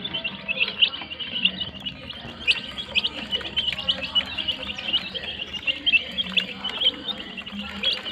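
A brood of domestic chicks peeping continuously, many short high cheeps overlapping several times a second.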